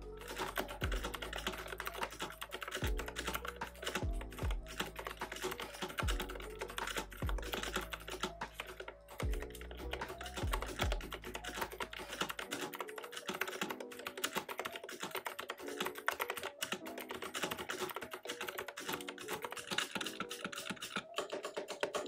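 Fast, continuous typing on the Azio Retro Compact mechanical keyboard: its Kailh-made tactile clicky switches under round typewriter-style keycaps give a quick, clean clatter of key clicks. Background music plays underneath, and its bass drops out about halfway through.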